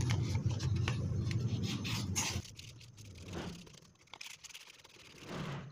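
Sandpaper scraping back and forth on a blender motor's armature shaft, sanding off the corrosion that made the motor hard to turn; a series of short dry strokes. A passing road vehicle's engine rumbles under it at first and fades out about two and a half seconds in.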